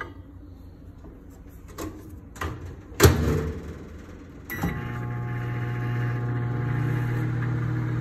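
Microwave oven door shut with a bang about three seconds in; after a click a second and a half later, the oven starts running with a steady hum, heating on a one-minute cycle.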